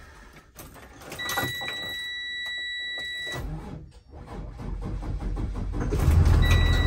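School bus warning buzzer beeps steadily for about two seconds at key-on, then the engine is started on a second try: a low rumble builds from about halfway through and settles into a loud, steady run, with the buzzer sounding again near the end.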